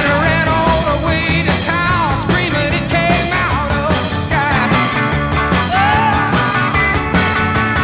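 Rock music with a steady beat and a wavering melody line.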